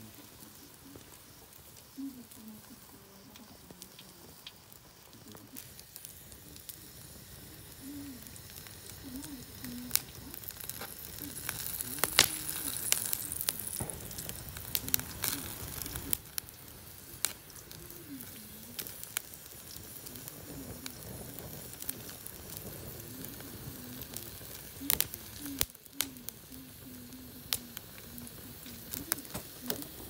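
Kindling and newspaper burning in a steel barbecue grill pan: a wood fire catching, with a steady hiss of flame and scattered sharp crackles and pops. The crackling thickens about ten seconds in, with a burst of loud pops around twelve seconds as the fire takes hold.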